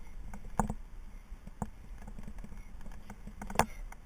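Irregular light clicks and taps with a few sharper knocks, the loudest near the end: metal abseiling gear (descender ring and carabiner on the rope) knocking about, and shoes against a concrete wall during an abseil descent.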